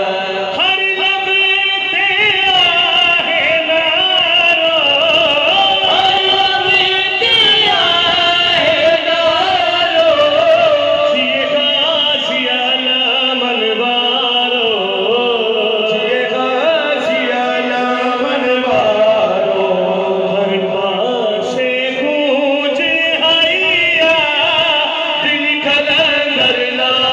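A group of men singing an Urdu devotional song through microphones: a lead voice with long, wavering held notes and others joining in.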